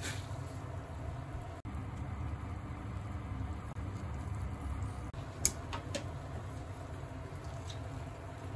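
Pot of water heating over a gas stove burner with a block of instant ramen noodles in it: a steady low rumble. Two sharp clicks a little past halfway.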